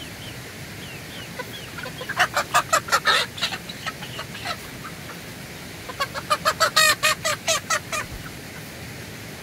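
Chickens calling in two bursts of quick, repeated loud notes, the first about two seconds in and the second about six seconds in.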